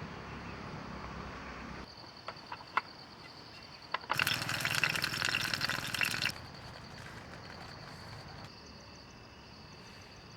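Water running and dripping in a wet forest, loudest in a hissing surge of about two seconds near the middle, with scattered drips and a steady high-pitched whine in the background.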